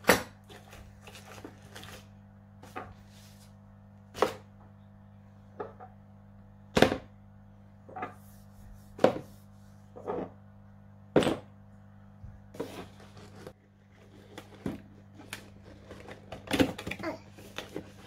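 Kit boxes and bottles being put into a cardboard box and set down on a tabletop: about a dozen irregular knocks and thunks, with a steady low hum underneath.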